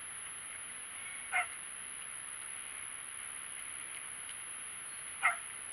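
Steady background hiss with a faint constant high tone, broken twice by a short animal call, once about a second and a half in and once near the end.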